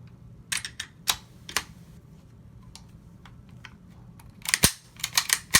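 Sharp clicks and clacks of a GSG AK-47 .22 rifle's parts and small tools being handled and fitted together during reassembly. The clicks are scattered at first, then a quick cluster of louder clicks comes near the end.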